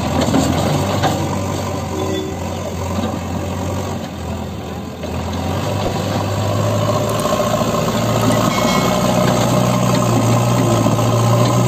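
JCB 3DX backhoe loader's diesel engine running steadily, easing off slightly about four seconds in, then revving up and holding louder from about six seconds as the front loader bucket pushes into the soil.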